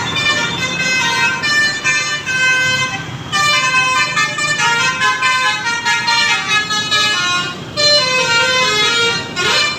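Bus's Basuri telolet horn playing a tune of quick stepped notes, with a short break about three seconds in and a rising sweep near the end.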